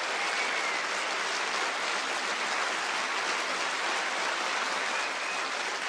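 Large concert audience applauding steadily.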